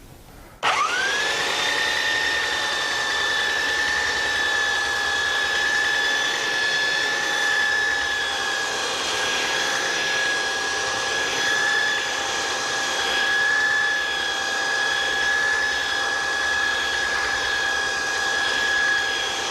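Belt sander with a 50-grit belt switching on about a second in and running steadily, a constant high whine over a hiss.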